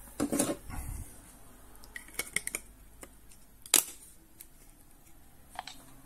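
A glass touch-switch cover panel being fitted over its circuit board: a brief handling rustle at the start, a quick cluster of small clicks about two seconds in, and one sharp snap a little before the four-second mark, with a last light click near the end.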